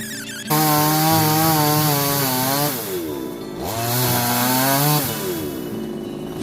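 Chainsaw running under load, apparently cutting wood. It starts loud about half a second in, its engine pitch drops sharply around three seconds in, climbs back, and drops again near the end.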